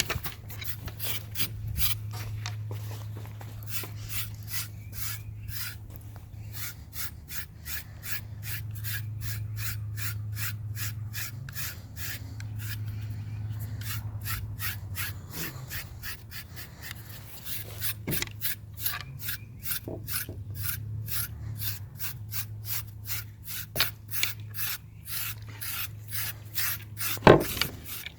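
Rhythmic rubbing or rasping strokes, about two or three a second, over a steady low hum, with a sharp knock near the end.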